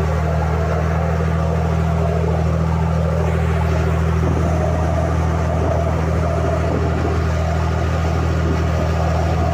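Pilot boat's engine running steadily under way, a constant low hum, with water rushing past the hull.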